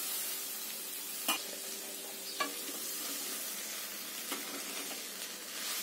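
Cabbage and chickpea sabzi sizzling in a steel kadai while a wooden spatula stirs and scrapes it, with a few light knocks of the spatula against the pan.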